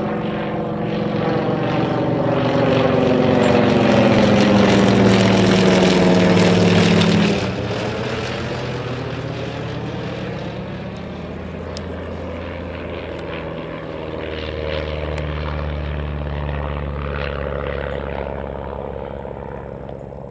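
Yak-52's nine-cylinder radial engine running hard as the plane flies over. It grows louder, then its note drops and the level falls suddenly about seven seconds in as it passes. A lower, steady propeller-engine drone comes up from about fourteen seconds in.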